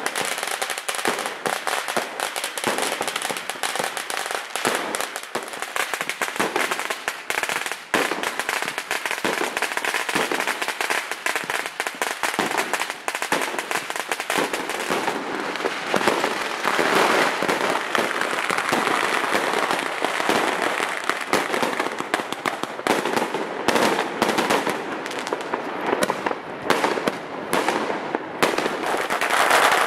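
Fireworks and firecrackers going off in a dense, unbroken barrage: many sharp bangs a second over a continuous crackle, a little louder near the end.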